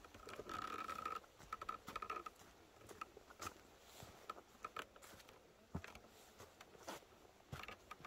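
Footsteps crunching and rustling on dry fallen leaves along a forest trail, a run of light irregular crackles. In the first two seconds a steady high whistle-like tone sounds in a few short stretches.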